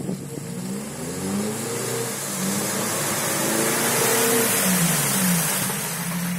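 Suzuki Grand Vitara's engine revving hard as the SUV pushes through deep mud ruts, its pitch rising and falling several times under load, with a hissing rush that swells in the middle.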